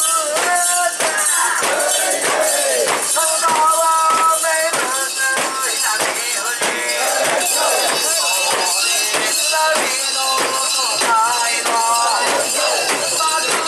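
Japanese festival music: a held, wavering melody over a steady beat of sharp percussion strikes, roughly two a second.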